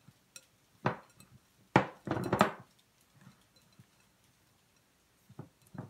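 Glass mixing bowl knocking and clunking on a wooden countertop as a sticky ground-chicken mixture is kneaded by hand in it: a few sharp knocks in the first half, the loudest about two seconds in, then a quiet stretch and a few light taps near the end.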